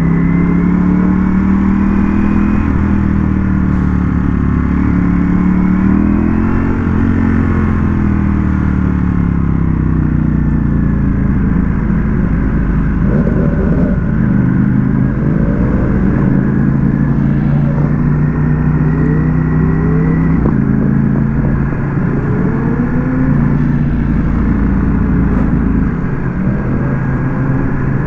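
Ducati Panigale V4S's V4 engine under way, its note climbing and falling as the throttle is opened and closed through the gears, steadier in the middle and climbing again near the end.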